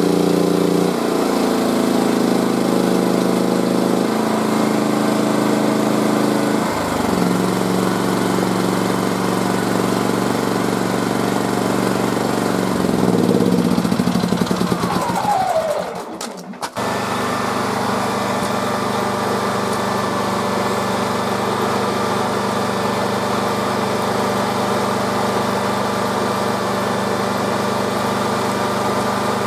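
Champion tri-fuel inverter generator and Honda 5200 generator running in eco mode, their engine note stepping down several times as the heater loads are switched off. A brief falling whine and a moment's break come after about fifteen seconds, and then a steady, lower no-load idle.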